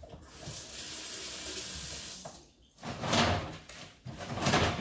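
Water running from a kitchen tap into a sink, a steady hiss for a second or so, then two louder splashing gushes near the end as something is rinsed under it.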